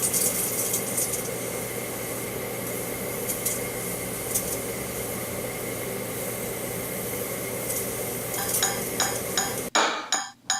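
Microwave oven running with its steady hum, with crackling and sizzling from a glass bottle of energy drink heating inside. Near the end a quick run of clicks sounds, then the sound cuts off abruptly.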